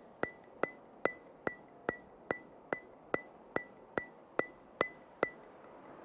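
Steady, evenly spaced ticking, about two and a half ticks a second, each tick a sharp click with a short ringing tone; thirteen ticks, then it stops about five seconds in.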